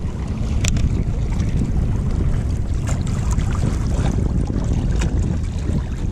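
Wind rumbling on the microphone, with small waves lapping against shoreline rocks. A few light clicks, the sharpest one under a second in.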